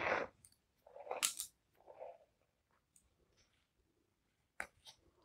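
Cotton fabric rustling and wool thread being drawn through it during hand embroidery: a few short swishes in the first two seconds, then two light clicks near the end.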